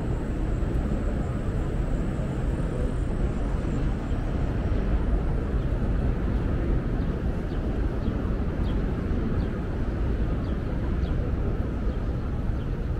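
Steady low rumble of outdoor city ambience, with a few faint light ticks from about seven seconds in.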